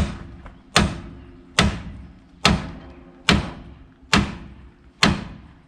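A hammer beats on a pickle fork wedged into a front-suspension ball joint: seven hard, evenly spaced blows, a little under one a second, each with a short metallic ring. The joint is still stuck and has not popped loose.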